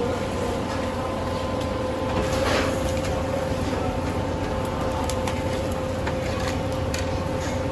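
A steady machine hum with a constant whine, like a fan or motor running, with a few light clicks and knocks now and then.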